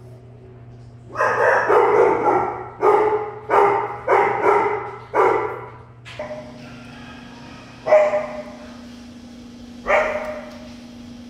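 Dogs barking: a quick run of about six barks, then two single barks about two seconds apart.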